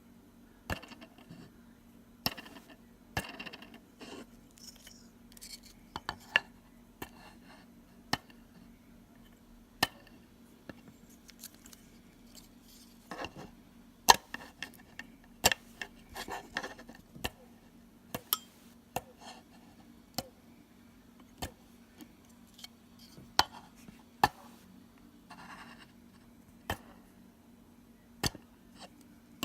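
Small Diatone 1306 3100kv brushless motor giving an irregular gritty grinding, with scattered sharp clicks and short scratchy rattles over a faint steady hum. It is the grinding fault the owner is showing.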